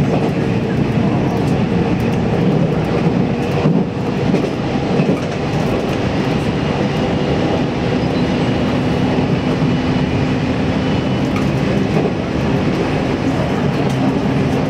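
JR Central 313-1100 series electric train running along the line, heard from inside the front car: a steady rumble of wheels on rail with faint clickety-clack and a low hum, a new hum line joining about halfway through.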